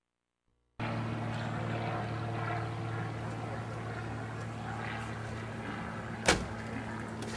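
Silence for under a second, then a steady low engine-like hum, with one sharp click about six seconds in.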